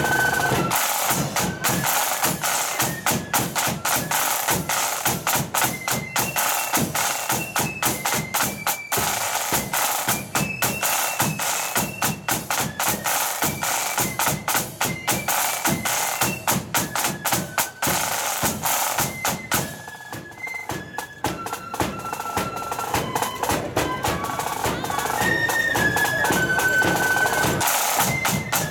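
Marching flute band playing a tune: flutes carry the melody over rapid snare drumming and a bass drum. About two-thirds of the way through, the drumming thins out for a few seconds, then comes back in full.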